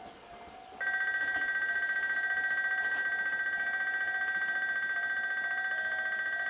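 Railway electronic warning bell starting about a second in: a steady high two-tone ring with a fast flutter.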